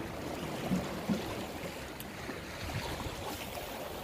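Sea water washing against a rocky shore, a steady wash with two short low thumps about a second in.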